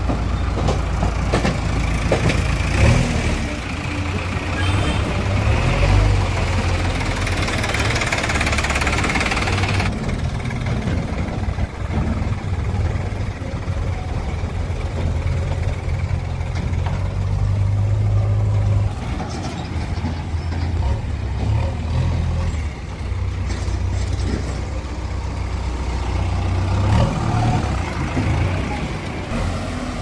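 Diesel engines of a JCB 3DX backhoe loader and a farm tractor running as they drive slowly, a steady low engine note throughout. A higher hiss over the first ten seconds cuts off suddenly.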